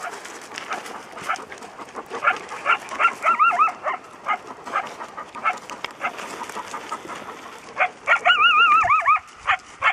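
Coyote barking and yipping from the brush, a run of short high yips broken by two quavering, wavering howls, about three seconds in and again near the end.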